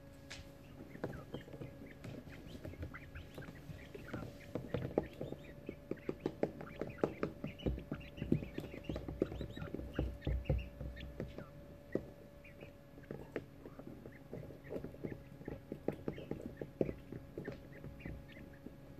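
Young coturnix quail chicks shuffling in wood shavings with soft chittering. Runs of small, quick taps are busiest through the middle.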